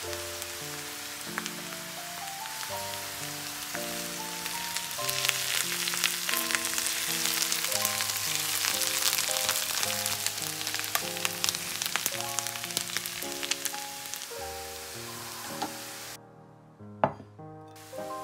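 Diced potatoes and carrots sizzling and crackling in oil in a frying pan as they are stirred. The sizzle is loudest in the middle and cuts off shortly before the end, followed by a sharp knock. Background piano music plays throughout.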